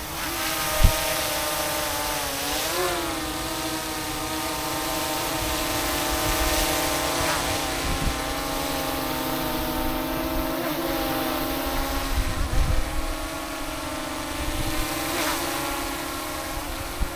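FIMI Mini drone with Master Airscrew propellers hovering, its motors and props giving a steady whine that dips and rises in pitch once as the motors correct. Wind rumbles on the microphone, with a short thump about a second in.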